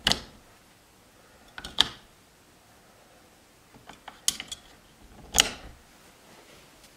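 AA batteries being pressed one by one into the spring-contact battery compartment of a Yale Assure Lock SL keypad deadbolt: four sharp plastic-and-metal clicks spread over several seconds, with a few lighter ticks of handling between them.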